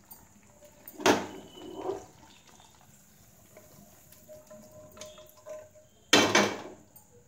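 Two loud clatters of metal cookware, about a second in and near the end, with quieter knocks between, as thick coconut burfi mixture is tipped from a non-stick pan onto a steel plate.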